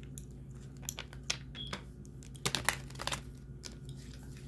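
Tarot cards being handled and shuffled: irregular light snaps and crinkles, a cluster of them about two and a half to three seconds in, over a low steady hum.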